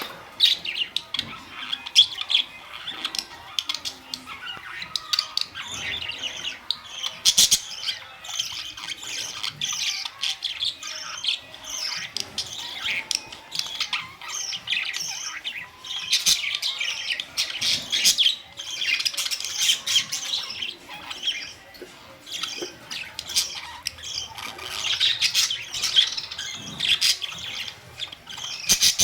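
A group of budgerigars chattering continuously, with many overlapping chirps, warbles and short squawks.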